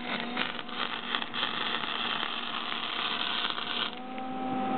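Electric arc welding: the welding arc crackles and sputters with a dense run of small pops, then stops a little before the end, leaving a steady low hum.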